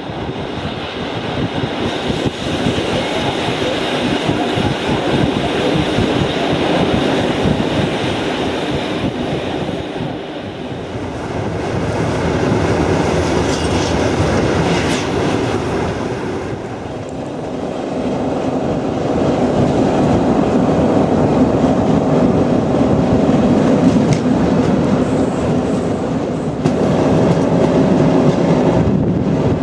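Passenger train running along the track: a steady rolling noise of wheels on rails, which grows louder about two-thirds of the way in.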